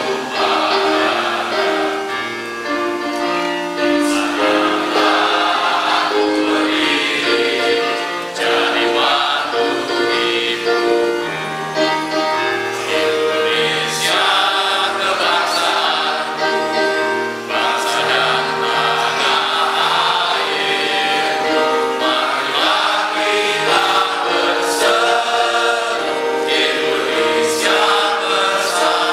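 Background music with choir-like singing over sustained chords and a slowly moving bass line.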